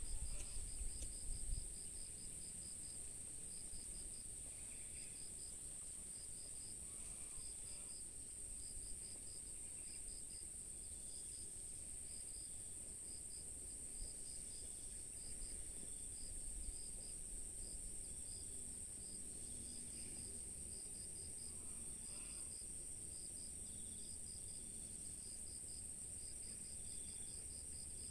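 Night-time insect chorus: a steady high-pitched drone with a cricket chirping over it in short, rhythmic groups of pulses.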